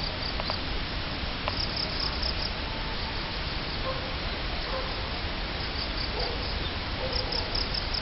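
Crickets chirping in groups of short, high-pitched pulses over a steady background hiss.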